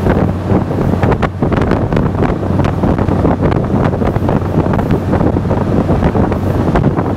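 Wind buffeting the microphone on a moving train, in irregular loud gusts, over the steady low hum and rumble of the train running along the track.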